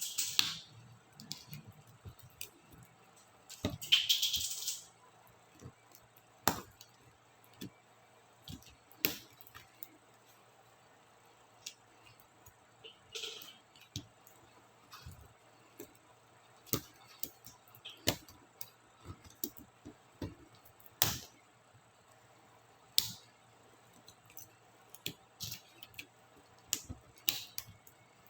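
Laptop keyboard keycaps being pried off and handled: irregular sharp plastic clicks, with a few short scraping sounds.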